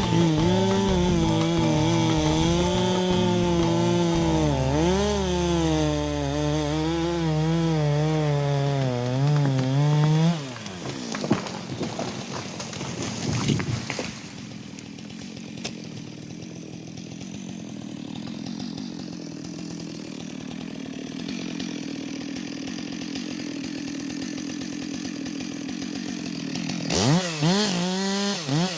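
Two-stroke chainsaw running at high revs, its pitch wavering as it cuts, then dropping off about ten seconds in amid a few sharp knocks. It idles for a long stretch and revs back up to full speed near the end.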